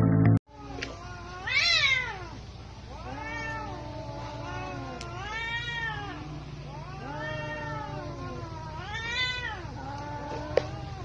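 Cats caterwauling at each other in a territorial standoff: a run of long, wavering yowls that rise and fall in pitch, one after another.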